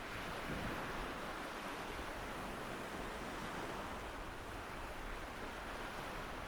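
Rain and sea sound effect: a steady hiss of surf and rainfall, with no alarm tone over it.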